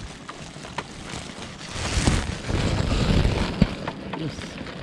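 Woven plastic sacks rustling and being pushed about, with rumbly handling noise that swells about two seconds in and a sharp click near the end.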